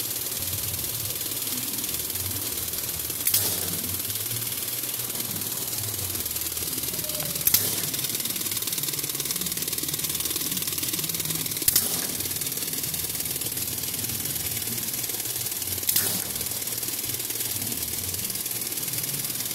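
Flat-type radiator fin forming machine running, its rollers forming copper fin strip with a steady mechanical whir and hiss, and a sharp clack about every four seconds.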